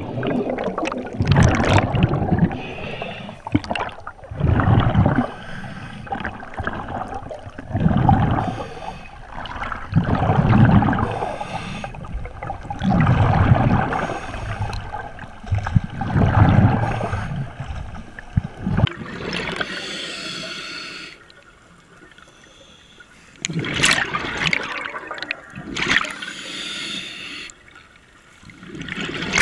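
Scuba diver's breathing heard underwater through a regulator: exhaled bubbles rush and gurgle in bursts about every three seconds during the descent, and later come hissier breaths with quieter gaps between them.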